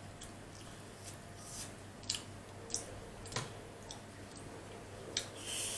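A person chewing chicken nuggets, with a few sharp, irregular mouth clicks and smacks and a brief rustle near the end, over a low steady hum.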